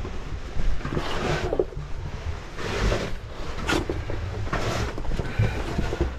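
Scraping and rustling of a caver crawling on the dirt floor of a tight cave passage and pushing a caving bag along, in short bursts about every second or so, with one sharp knock a little before the four-second mark. Low rumble underneath throughout.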